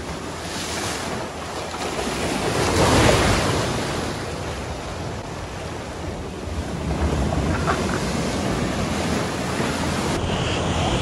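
Shore-break waves crashing against a rock cliff and washing back over the rocks, with wind buffeting the microphone. One wave breaks loudest about three seconds in.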